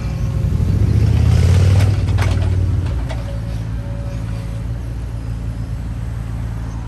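Mini digger's diesel engine running and pulling harder as the hydraulic arm works, getting louder about a second in. A few sharp knocks come about two to three seconds in, then the engine settles back to a steady run.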